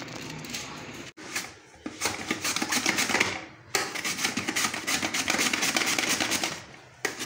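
Onion being sliced on a Bruno vegetable cutter: the plastic pusher is worked quickly back and forth over the blade, a fast run of rasping clicks in two spells with a short break in the middle.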